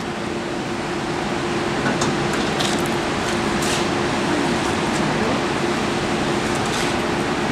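A steady mechanical hum and rushing background noise, with a few light metallic clicks spread through it as the metal rotisserie basket holding the hog is handled and rolled on the table.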